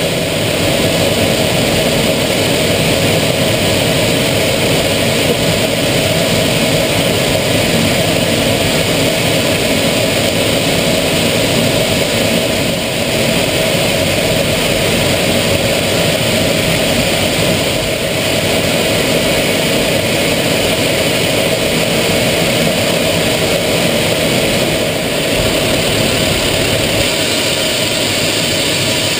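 Aero L-39 Albatros jet trainer in flight, heard from inside the cockpit: a loud, steady rush of turbofan engine noise and airflow over the canopy, with a steady hum underneath.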